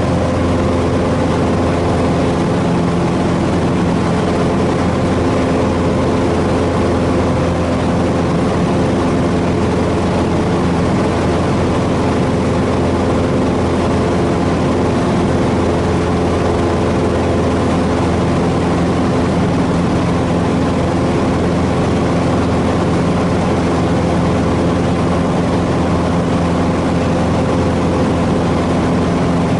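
Cessna 150H's Continental O-200 four-cylinder engine and propeller running steadily in flight, heard inside the cabin as a loud, even drone that holds one pitch throughout.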